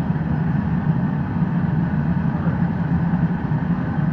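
Steady low roar of a glassblowing hot shop's gas-fired burners and exhaust ventilation, running evenly without a break.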